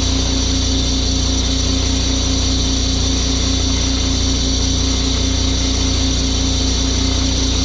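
Pressure washer engine running steadily at a constant speed, with a hiss over the engine sound.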